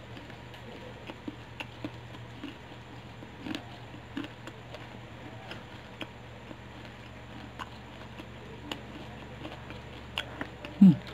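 A person chewing battered fried chicken close to the microphone: scattered small crunches and mouth clicks over a steady low hum. A short low throat sound, falling in pitch, comes near the end.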